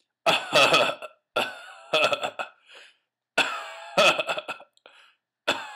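A person's voice in short bursts, four main ones of about a second each with brief silences between, not recognisable as words.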